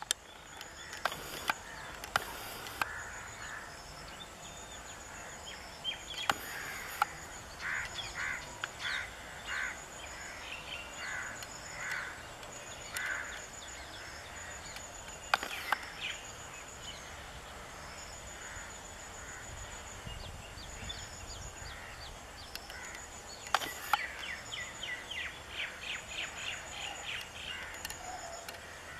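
Several birds calling outdoors. A faint, high call repeats at an even pace throughout, louder calls come about a third of the way in, and a rapid chattering series of calls comes near the end. A few sharp clicks stand out above the calls.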